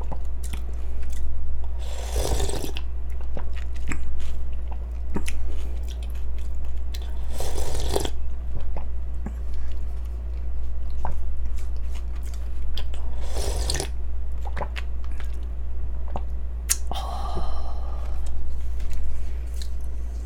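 Close-miked chewing and crunching of a mouthful of yeolmu naengmyeon (cold noodles with young-radish kimchi), with many small wet clicks and three louder swells about five seconds apart. A steady low hum sits underneath.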